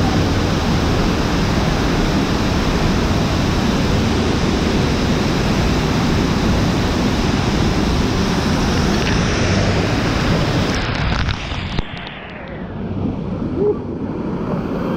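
A curtain of falling water pouring and splashing close over an action camera: a loud, steady rush of water. About eleven seconds in it turns muffled and quieter for a moment, then picks up again.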